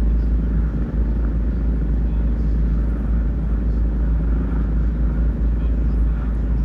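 Mother cat purring steadily while her kittens nurse, a deep continuous rumble.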